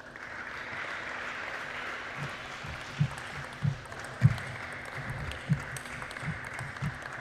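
Light applause from a small arena crowd after a point, then the knocks of a table tennis rally, about one every half second from about three seconds in.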